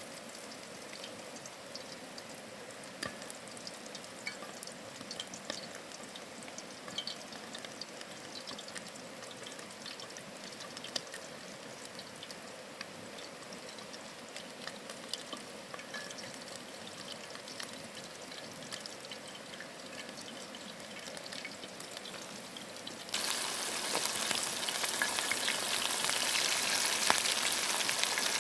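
Chicken wings frying in hot oil: a steady sizzle with many small pops and crackles, which jumps suddenly much louder about three quarters of the way through.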